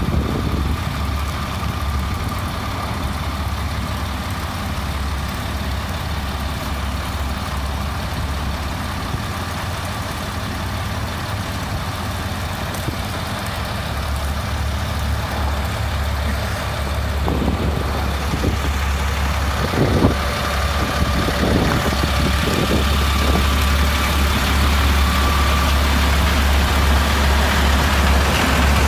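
Large truck engine idling steadily, with a few short knocks partway through; the engine grows louder near the end.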